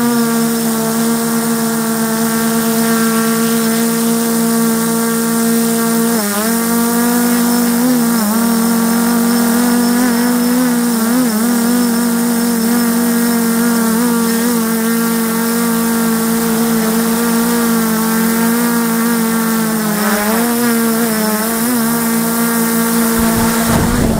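Multirotor FPV drone's electric motors and propellers humming steadily while it hovers, heard loud from its onboard camera, the pitch dipping briefly several times as the throttle shifts. Near the end a short rush of noise as it comes down to the ground.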